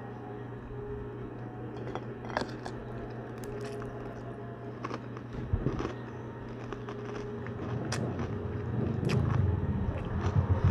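Close-up crunching and chewing of crispy chicharon (deep-fried pork rinds), with scattered sharp crackly bites over a steady low hum. Near the end a low rumble builds up.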